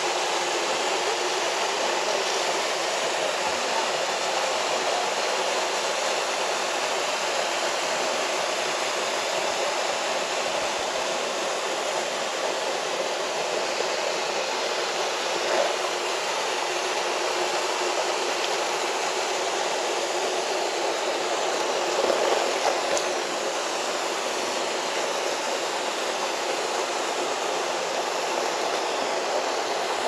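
Small waterfall pouring over a rock face into a shallow pool: a steady rush of falling and splashing water.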